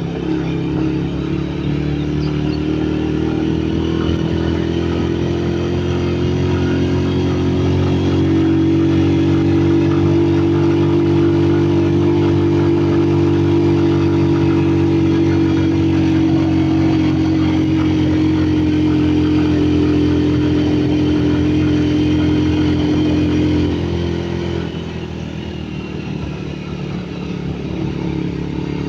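Honda CG125's single-cylinder four-stroke engine running steadily. Its pitch creeps up over the first several seconds and then holds. About 24 seconds in it eases off and goes a little quieter.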